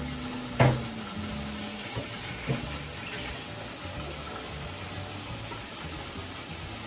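Water boiling in a stainless steel steamer pot as it steams, a steady hiss. A sharp knock comes about half a second in, with two lighter clicks around two seconds in.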